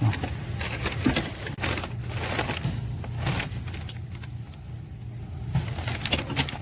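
Dashboard trim clips and tools being handled: scattered sharp clicks and knocks, several in the first few seconds and a quick cluster near the end, over a steady low hum.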